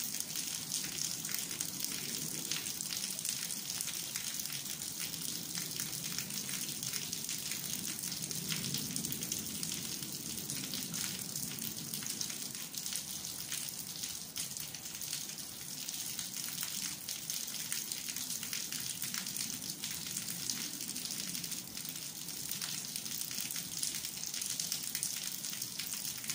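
Steady rain falling: a dense, even hiss of drops speckled with many small ticks.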